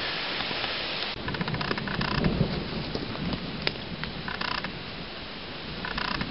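Footsteps and rustling through forest undergrowth with a few low thumps, over a steady hiss.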